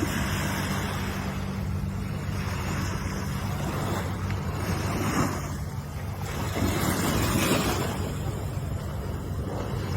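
Ocean waves washing ashore in surges, the strongest about two thirds of the way through, over a steady low hum.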